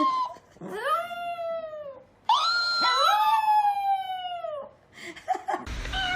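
Pets giving long, drawn-out pitched calls, each rising and then falling, with two voices overlapping about three seconds in. Near the end the sound cuts to a short different call over background noise.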